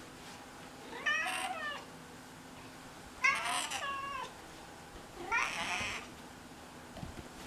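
Domestic cat meowing three times, each call about half a second to a second long and roughly two seconds apart, the middle one the loudest.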